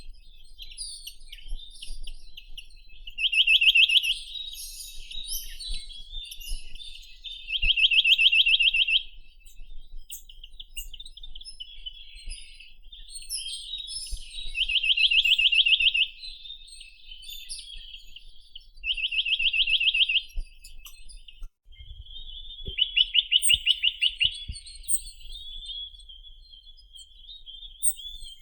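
Chinese nuthatch (Sitta villosa) singing: five fast trills of rapidly repeated notes, each lasting one to two seconds and coming several seconds apart, with fainter high chirps of other birds in between.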